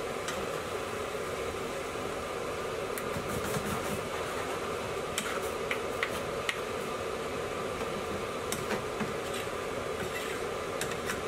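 A spoon stirring thick curry in a shallow frying pan, giving scattered light clicks and scrapes against the metal over a steady background hum.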